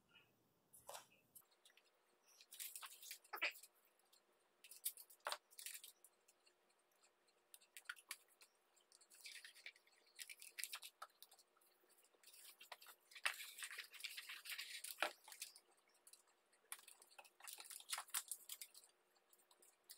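Aluminum foil tape being worked by hand: its foil crinkling and its paper backing rustling as strips are peeled off, laid and pressed onto cardboard. It comes as quiet, scattered crackles and a few sharp clicks, with two longer rustling stretches in the middle.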